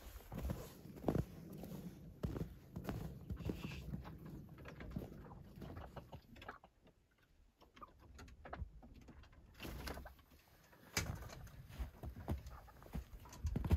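Irregular soft knocks, scuffs and rustles of movement around a wooden poultry coop in the snow. It goes nearly quiet for a few seconds in the middle, then the knocks come thicker again near the end.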